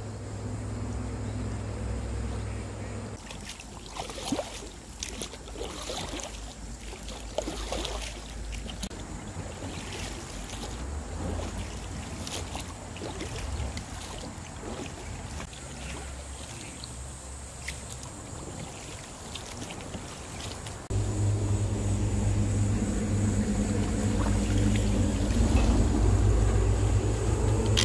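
Haswing 1 hp electric outboard motor humming steadily at the start. About three seconds in it gives way to irregular splashes and knocks of a hand paddle working the water. About 21 seconds in the motor hum comes back louder and steady.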